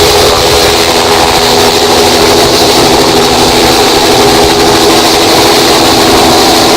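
Helicopter running steadily at close range: a loud, even engine and rotor din with a few held tones, unchanging throughout.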